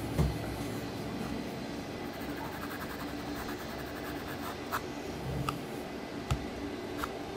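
Graphite pencil scratching in strokes across drawing paper while shading a sketch, with a soft thump just at the start and a few light ticks later on.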